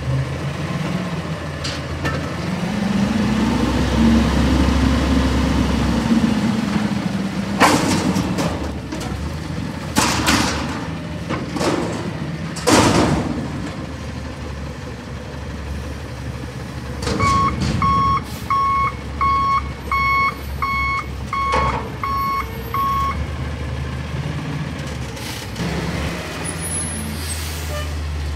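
Natural-gas Peterbilt 320 front-loader garbage truck revving its engine to work the hydraulic forks as it lifts a dumpster overhead. A few loud bangs follow as the dumpster is emptied into the hopper. Later the backup alarm beeps about nine times, steadily, as the truck reverses.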